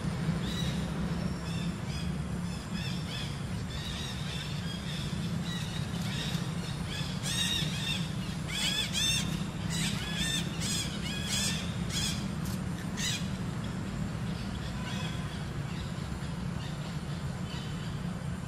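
Birds chirping, with a run of sharp, high squawking calls in the middle, over a steady low hum.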